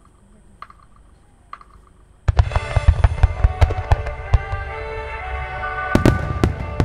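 Fireworks show opening: about two seconds in, music over the venue loudspeakers starts suddenly, together with a rapid run of firework launches and bangs. The loudest bursts come near the end.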